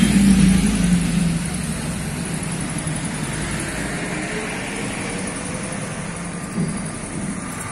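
Street traffic: a motor vehicle passes in the first second or so, its engine sound fading away, then a steady hum of traffic.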